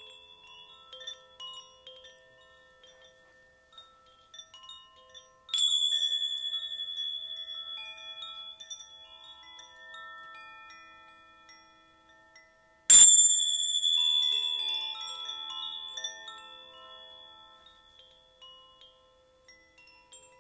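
Chimes tinkling at scattered pitches, with two louder bright chime strikes, about five seconds in and again about thirteen seconds in, each ringing out and fading slowly.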